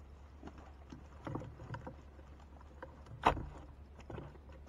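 Fish being freed from a gill net and dropping onto the floor of a wooden boat: scattered light knocks and taps on the boards, with one sharp, louder knock about three seconds in.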